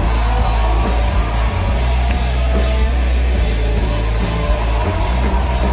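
Rock band playing loud and live: electric guitar and drum kit over a heavy, booming bass end.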